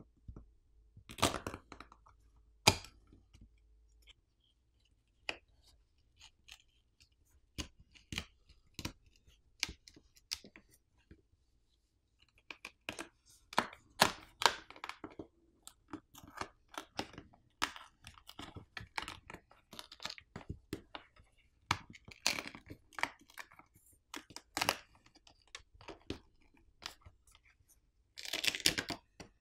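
Plastic pry tool working the plastic back plate off a Samsung Galaxy A25 5G, its adhesive loosened by heat: irregular clicks, scrapes and crackles, thicker in the second half, with a longer tearing scrape near the end.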